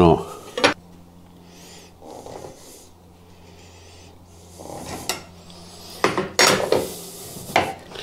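A steel blade scraping and paring wood in a hinge rebate cut into a hardwood door-frame stile, with sharp metallic clinks of hand tools being picked up and set down on the workbench, loudest in a cluster about six seconds in. A faint steady low hum runs underneath through the middle.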